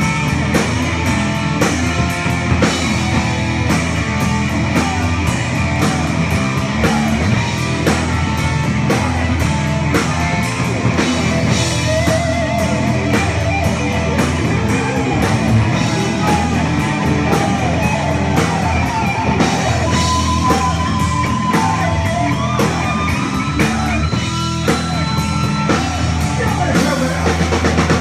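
Live hard rock band playing loud: electric guitar, bass and drum kit, with a melody line that bends and wavers in pitch through the middle.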